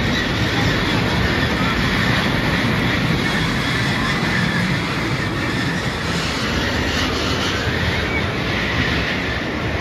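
Caterpillar-themed kiddie roller coaster running on its steel track: the cars' wheels make a steady rolling rattle on the rails.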